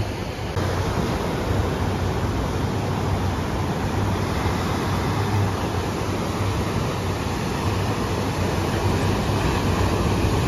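Ocean surf breaking and washing up a sandy beach, a steady hiss of water with a low rumble underneath.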